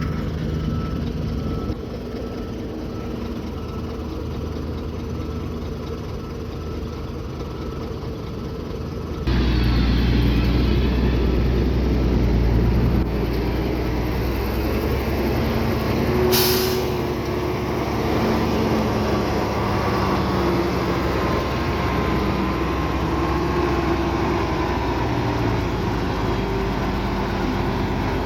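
Heavy diesel engines of earthmoving machinery running steadily, getting louder about nine seconds in. A short hiss comes about sixteen seconds in.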